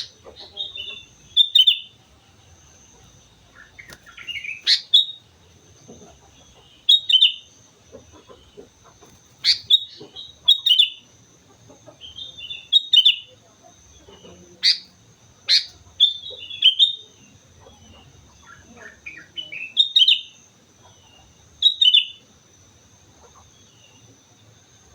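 Sooty-headed bulbul singing: short whistled phrases repeated every one to three seconds, a few of them opening with a sharp high downward sweep.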